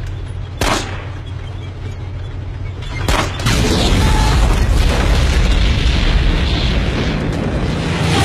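Battle sound from a war film's soundtrack: a heavy low rumble with two sharp blasts, under a second and about three seconds in, then a dense, continuous din of explosions from about three and a half seconds on.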